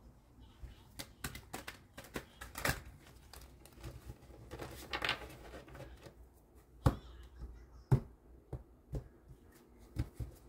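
Tarot or oracle cards being shuffled and handled, with rustling and a run of clicks. Three sharper taps come in the second half.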